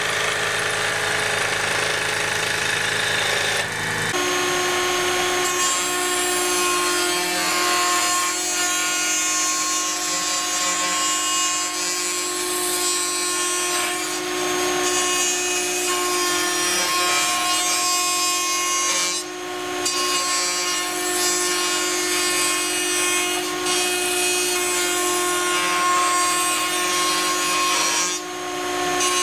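A power tool running and working wood, a steady pitched motor whine over cutting noise. The sound changes about four seconds in, from a lower hum to a higher whine, and the whine dips briefly twice near the end.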